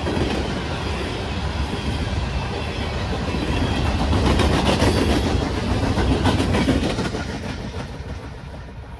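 Freight train of open-top hopper cars rolling past, its steel wheels rumbling and clacking over the rail joints. The sound fades away after the last car goes by, near the end.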